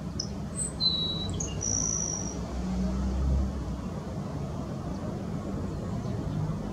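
Distant low, steady rumble of an Airbus A320-232's IAE V2500 jet engines as the airliner taxis on the runway, swelling slightly about halfway through. A few short, high chirps come over it in the first couple of seconds.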